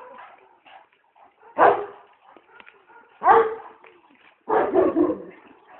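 Sharr mountain dog (Šarplaninac) barking: three loud barks about a second and a half apart, the last one a quick double bark.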